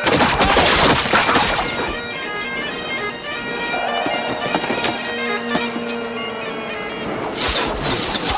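Film battle soundtrack: a volley of arrows whooshes down and clatters into shields and turf in the first two seconds, over a score with pipes holding long notes. A second burst of clattering strikes comes near the end.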